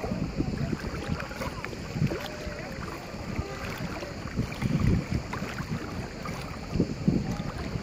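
Legs wading through shallow seawater, sloshing and splashing in irregular surges with each stride, with wind buffeting the microphone.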